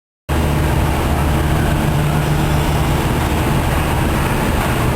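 An engine running steadily with a low drone and even hum, starting abruptly just after the start.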